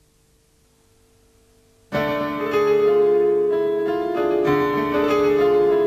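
Soundtrack music: after nearly two seconds of near silence with one faint held note, keyboard music comes in suddenly, playing steady held chords.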